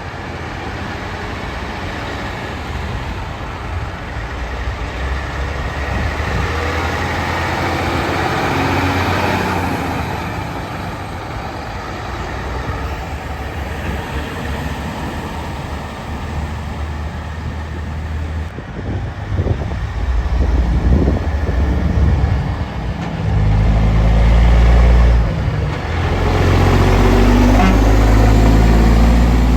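Heavy trucks driving past, engine rumble and road noise rising and fading as they go by. The rumble turns much louder and deeper in the last few seconds as a truck passes close.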